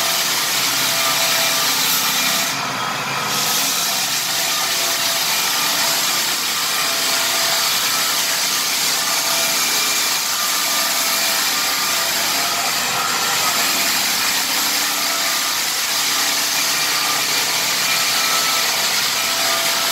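Lägler Hummel drum sander running steadily, its abrasive drum grinding across a rift red oak floor, with a steady whine over the noise; the sound briefly drops about three seconds in.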